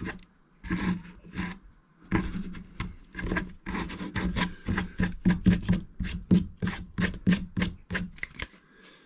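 A hand brushing drill shavings off a plastic kayak deck in quick rubbing sweeps. A few separate swipes come first, then a quicker run of strokes, about three a second, from about two seconds in.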